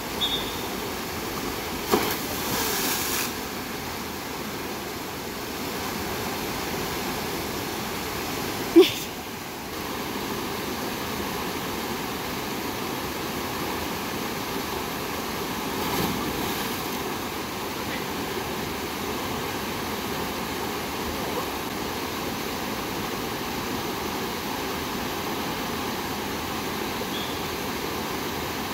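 Water pouring steadily down a rock water slide into a pool, with louder splashes as someone slides in, about two seconds in and again about sixteen seconds in. A brief loud sound near nine seconds.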